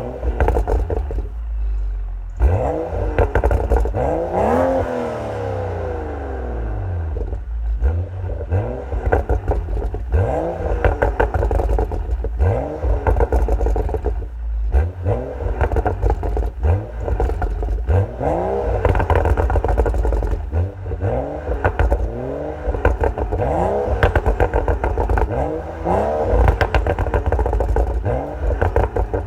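BMW M235i's turbocharged straight-six revved in repeated throttle blips through its M Performance sports exhaust, each rev rising and dropping back, with crackles and pops from the exhaust as the revs fall. The first rev, a few seconds in, is the longest; shorter blips follow every second or two.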